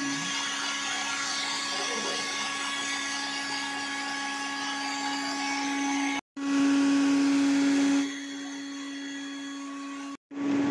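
Industrial vacuum running as its hose sucks dust and debris from between the rebar of a floor bay: a steady hum with a held tone. The sound cuts out briefly twice, about six seconds in and just before the end, and is louder for a second and a half after the first break.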